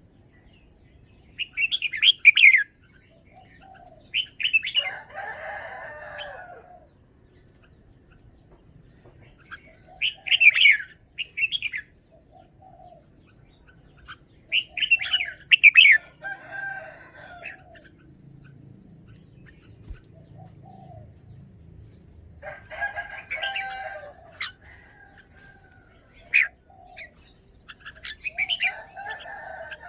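Red-whiskered bulbul singing short, bright, warbling phrases, about six of them spaced a few seconds apart. Lower, longer calls from other birds come in between several of the phrases.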